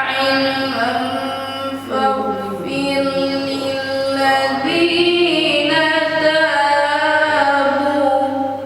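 A man reciting the Quran in melodic tarteel, drawing out long, ornamented held notes, over a steady low hum; the phrase ends near the end.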